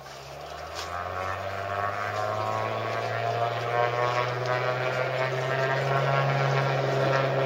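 Cessna 185 floatplane's piston engine and propeller at take-off power during its take-off run on the water, getting louder and rising a little in pitch over the first couple of seconds, then running steady.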